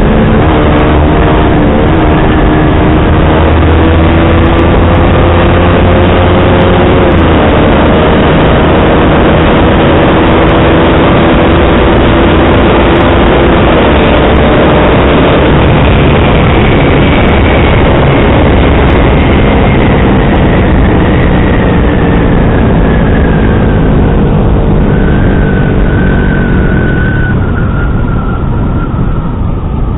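Yamaha R15 V3's single-cylinder engine through an SC Project aftermarket exhaust with dB killer, running under way. Its note holds and steps in pitch through the first half, then falls steadily as the bike slows, and it gets quieter near the end.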